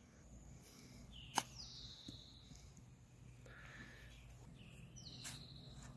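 Faint outdoor quiet with a bird calling, two similar short calls about four seconds apart and a fainter one between them, plus one sharp click about a second and a half in.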